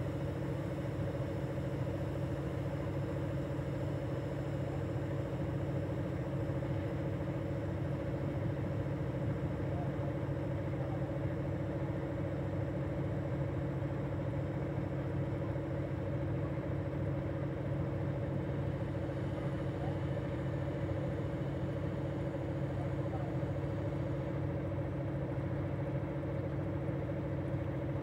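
Diesel locomotive engine idling steadily with the train standing, a constant low hum that holds one pitch throughout.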